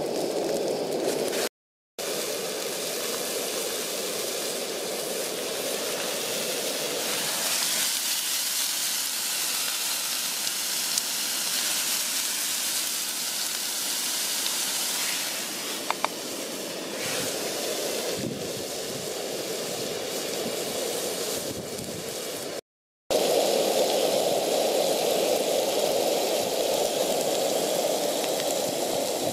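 Square sausage slices and sliced mushrooms sizzling in a frying pan over a gas canister stove, a steady hiss that grows brighter for a stretch in the middle. The sound drops out briefly twice.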